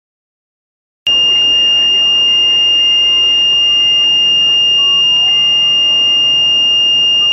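A loud, steady, high-pitched electronic beep like a piezo buzzer, starting abruptly about a second in and holding unbroken, over faint road noise from a moving car.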